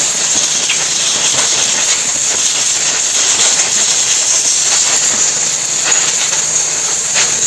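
Compressed-air blow gun hissing steadily as it blows carbon-brush dust off a motorcycle starter motor's armature.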